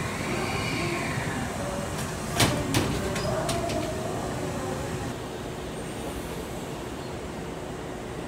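Interior ambience of a Hankyu 8000-series commuter train car standing at a station platform: a steady hum, with a short rising-then-falling whine about half a second in. Two sharp knocks come about two and a half seconds in and are the loudest sounds, followed by a few fainter clicks.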